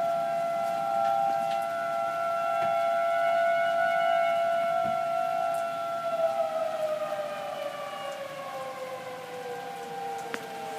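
Outdoor tornado warning siren sounding a steady wail. About halfway through, one tone begins a slow downward slide in pitch while another steady tone carries on.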